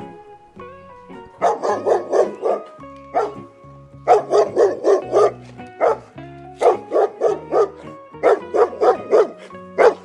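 A dog barking in several quick runs of about five to seven barks each, with short pauses between the runs.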